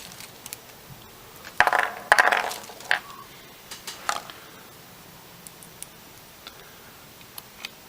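Small metal motor screws clinking and rattling against each other as they are handled, in a loud cluster about two seconds in, followed by a few light clicks and taps.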